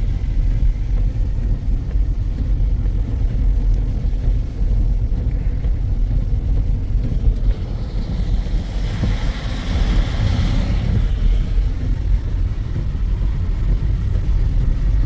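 Steady low rumble of a car driving, with a hiss that swells and fades between about 8 and 11 seconds in.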